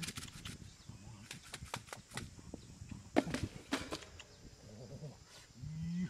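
Wire fan guards and sand being handled, giving a series of short scrapes and clinks, with a brief low call near the end.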